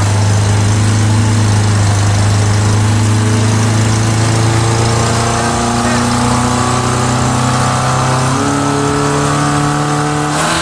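1994 Geo's 1.8-litre 16-valve four-cylinder engine pulling under load on a chassis dyno. Its pitch climbs slowly and steadily as the revs build, then steps up abruptly about eight seconds in.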